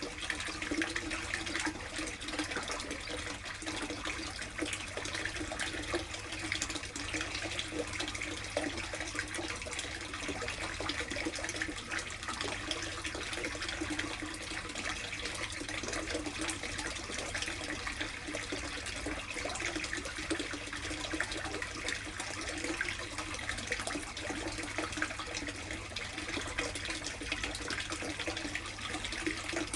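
Water running and splashing steadily into a plastic koi tub, an even, unbroken rushing sound.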